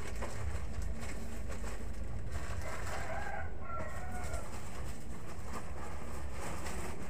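A rooster crowing faintly once, about three seconds in, over a steady low hum.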